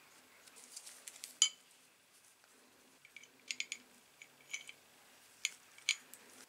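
Sharp metallic clinks and clicks of the restored pincers' steel halves and pivot bolt and nut knocking together as they are handled and assembled. One loud ringing clink comes about one and a half seconds in, then a series of smaller clicks.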